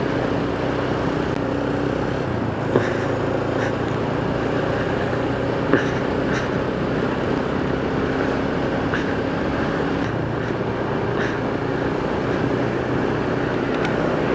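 Motorcycle engine running steadily while riding, with road and wind noise; two sharp knocks about three seconds apart in the first half.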